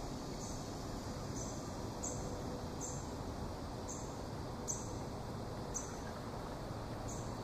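Swamp ambience: a steady low hiss of open air, with short high-pitched chirps from a small creature repeating roughly once a second.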